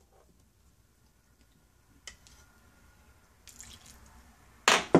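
A metal measuring spoon tipping chilled water into pie-dough flour in a mixing bowl: mostly quiet, with faint drips and small clicks. Near the end comes a sharp, ringing clink of the spoon against the bowl.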